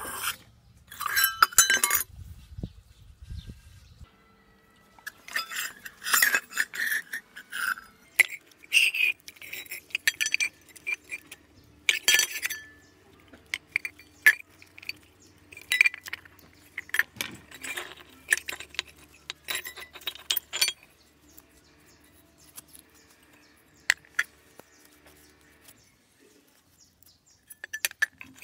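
An old rusty garden bell being handled and taken apart by hand: its small metal bells and brackets clink and rattle in bouts, some strikes ringing briefly. Only a few scattered clinks come in the last several seconds.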